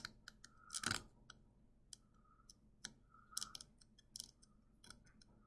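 A needle scraping and picking at a brittle dalgona sugar-honeycomb candy, making faint, irregular clicks and scratches.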